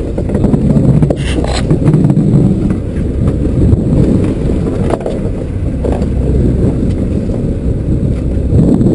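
Loud, steady low rumble on a small fishing boat at sea: wind buffeting the body-worn microphone over the boat's running engine, with a brief scrape about a second in.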